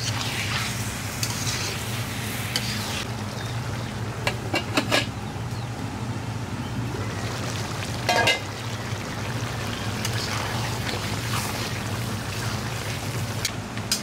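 Chicken pieces in masala sizzling in a pan while being fried down and stirred, at the bhuna stage with a little water added. A spatula knocks and scrapes against the pan in a quick cluster about four seconds in and again about eight seconds in, over a steady low hum.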